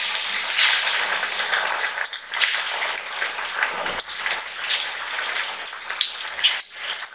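Spinach and gram-flour pakora batter sizzling as it deep-fries in hot oil, a steady hiss with frequent crackling pops as fresh pieces are dropped in.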